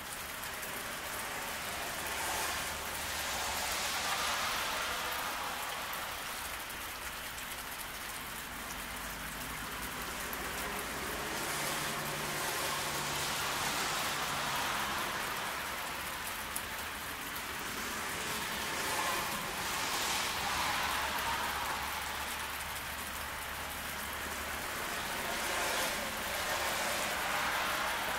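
Steady rain falling on a road, with the swish of passing cars on the wet pavement swelling up and fading away about four times.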